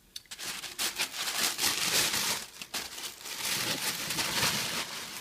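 Packaging crinkling and rustling as an item is unwrapped, a busy run of small crackles starting a moment in.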